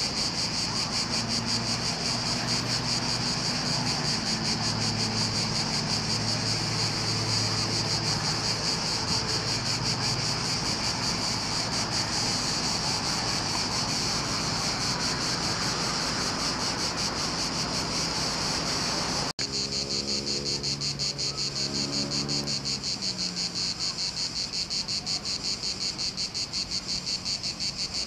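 Dense chorus of summer insects chirring: a loud, steady, rapidly pulsing high buzz. It cuts out for an instant about nineteen seconds in.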